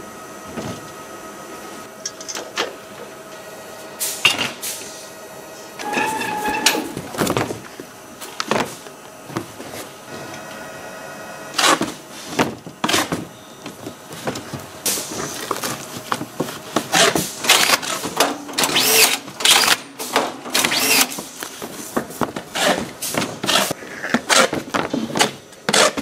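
Packing-line work noise: a steady machine hum with a short whine about six seconds in, then from about twelve seconds on a busy run of knocks, scrapes and rustles as cardboard and aluminium condensers are handled.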